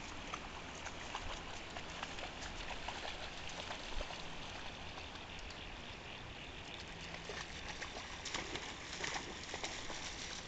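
Floodwater of a creek running over its banks: a steady rushing hiss, with scattered small crackles and splashes, busiest from about seven seconds in.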